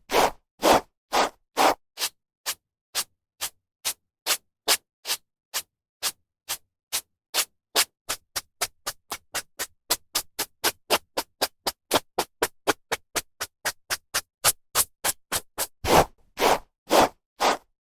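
A hairbrush stroking through hair in a long run of short swipes, about two a second at first, quickening to three or four a second in the middle, with a few longer, fuller strokes near the end.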